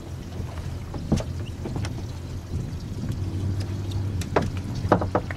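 Outboard motor idling with a steady low hum. A few sharp knocks come through, the first about a second in and three near the end.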